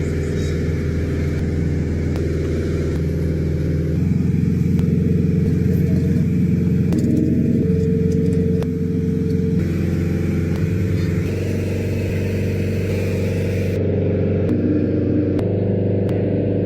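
A motor running steadily with a low drone, shifting abruptly in pitch and loudness every few seconds.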